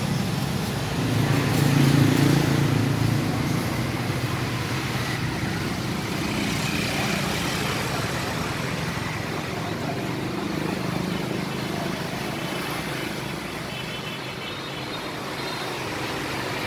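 Street traffic of motorbikes and scooters running by, one passing close and loudest about two seconds in.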